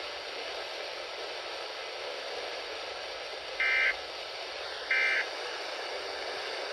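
Emergency Alert System End of Message (EOM) data bursts sent over the radio: two short two-tone digital screeches about a second apart, marking the end of the required monthly test. They sit over a steady radio hiss.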